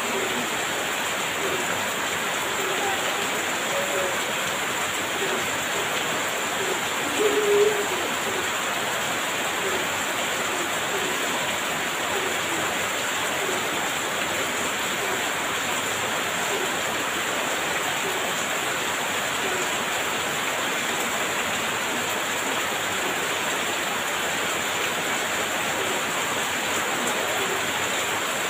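Heavy rain falling steadily, a constant hiss of downpour, with a brief louder sound about seven seconds in.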